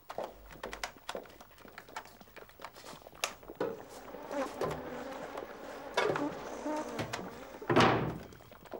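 Tin cans being handled, with scattered knocks and clatter, ending in a heavy thunk near the end.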